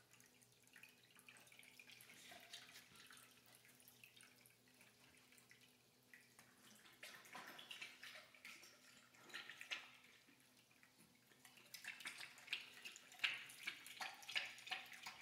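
A Central Asian shepherd dog lapping water from an electric pet water fountain: faint, irregular splashy laps over the fountain's trickle, louder and quicker from about halfway through. A faint steady hum runs underneath.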